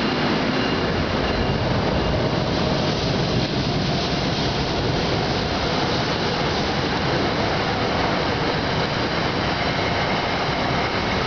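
Passenger train pulling out of the station past the platform: the steady rumble and rail noise of the cars going by.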